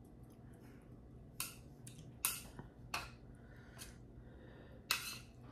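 A metal serving utensil clinking against a stainless steel pan and a bowl as fettuccine is lifted out of the pan, about five sharp clinks roughly a second apart.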